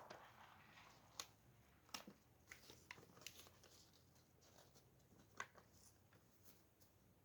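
Faint handling sounds: a few scattered soft clicks and crinkles as a chunk of suet is pressed onto the bird feeder's prongs.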